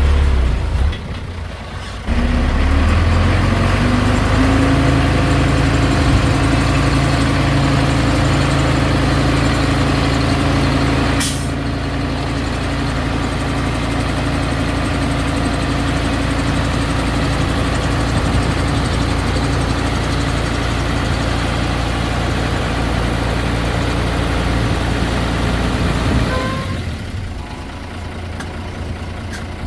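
Diesel engine of heavy earthmoving machinery running. It speeds up over the first few seconds and then holds a steady pitch, with a short sharp sound about 11 seconds in. Near the end it eases off and drops in level.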